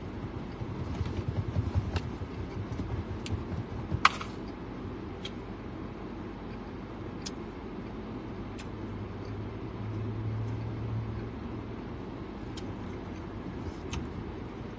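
Steady low hum of a car idling, heard from inside the cabin, with a brief low tone that swells around the middle. Scattered small mouth clicks from chewing a bite of hot dog, and one sharper click about four seconds in.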